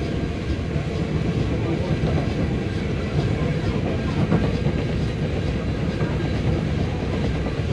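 Mount Washington Cog Railway train climbing the rack track: a steady rumble with a running clatter.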